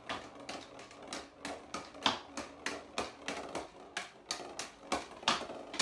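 Floorball stick blade tapping and dribbling a plastic floorball on a laminate floor: a rapid, irregular run of light clicks, several a second, with a few louder knocks.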